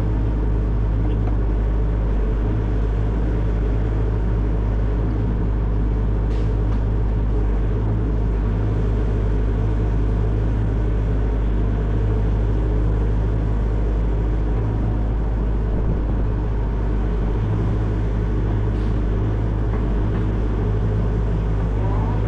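Excavator's diesel engine running steadily at working revs, a constant low drone with a few faint clicks over it.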